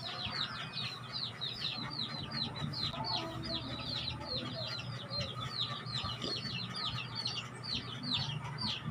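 Chicks peeping steadily in a rapid run of short, high, falling peeps, about five a second.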